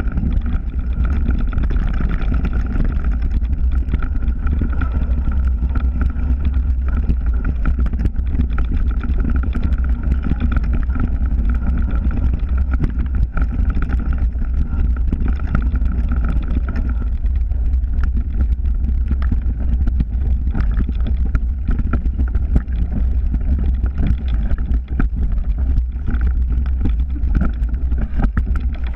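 Mountain bike ride on a dirt forest trail heard through an action camera: loud steady wind buffeting and tyre rumble, with frequent small rattles and knocks from the bike over rough ground. A faint steady whine runs through the first half.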